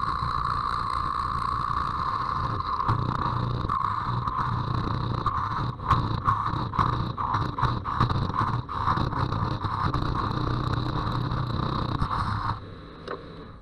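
Thin parting tool cutting into the foot of an ash wood vessel spinning on a wood lathe: a steady scraping hiss over the lathe's hum. It turns uneven and choppy in the middle and stops abruptly near the end.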